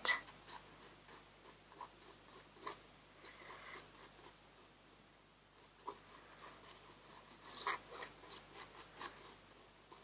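Graphite pencil sketching on sketchbook paper: faint, short scratchy strokes with a brief pause a little past the middle.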